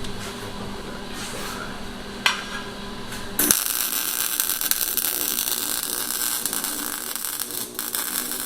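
Low steady hum with a single sharp click, then a loud, steady, hissing noise of metalwork on a car exhaust that starts suddenly about three and a half seconds in.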